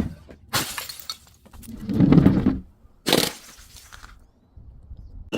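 Glass bottle being broken and crushed in separate bouts: a sharp crack about half a second in, a duller, lower crunch around two seconds, and another sharp crack about three seconds in, followed by faint crackling.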